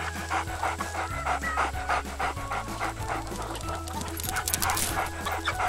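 Cartoon dog panting in quick, even puffs, about three a second, over background music with a steady low bass line.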